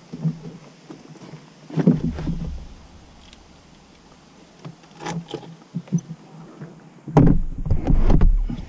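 Handling noises inside the Monotracer's enclosed cockpit: irregular knocks, clunks and rustles as the rider works the controls, with a louder, low rumbling stretch of knocking near the end.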